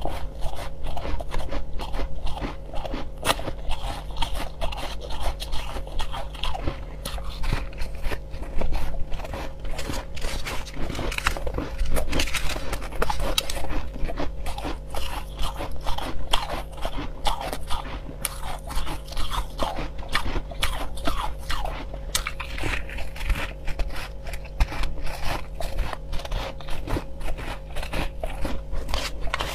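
Pink crushed ice being bitten and chewed close to the microphone: a dense, rapid crunching that goes on without a break.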